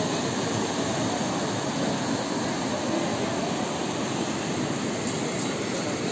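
The Alaknanda river rushing through whitewater rapids: a steady, unbroken roar of water.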